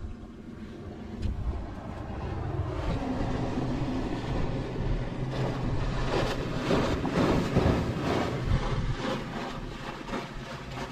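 Low steady drone of a passing engine, with a broad hiss over it.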